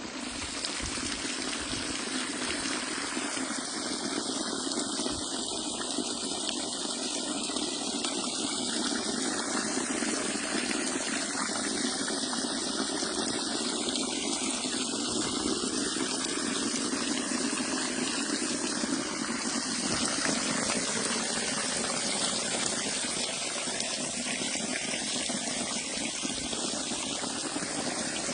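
Water falling steadily from a garden curtain waterfall into a stream, splashing evenly.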